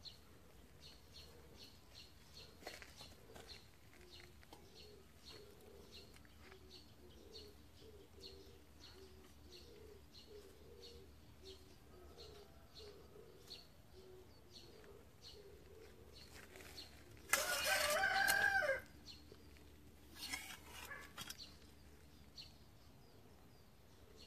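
A rooster crows once, loud and about a second and a half long, a little past the middle. A shorter, quieter call follows about two seconds later. Faint high chirps repeat steadily underneath.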